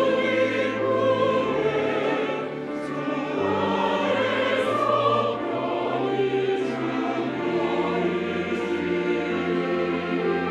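Mixed church choir singing a slow anthem in full harmony, accompanied by piano and organ, with held low organ notes underneath.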